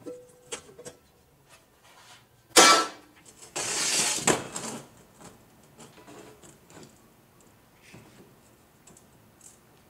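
A steel straight edge handled on a large sheet of steel: light clicks and taps, one loud ringing metal clank about two and a half seconds in, then about a second of steel scraping across steel.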